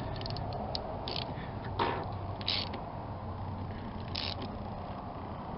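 Socket ratchet clicking in several short spurts as it works a car battery terminal nut, with one sharper knock of metal about two seconds in, over a steady low background rumble.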